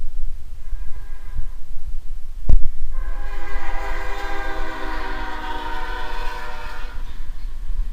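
CSX freight locomotive's air horn sounding for the grade crossing: a faint short blast about a second in, then a long blast from about three seconds in until about seven seconds, over a steady low rumble. A single thump comes just before the long blast.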